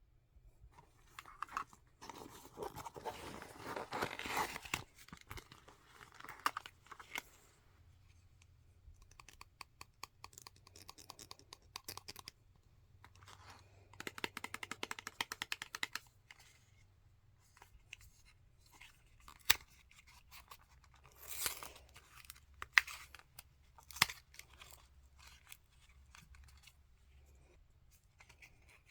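Makeup packaging being handled and opened: bursts of crinkling and tearing, with a few sharp clicks and taps later on.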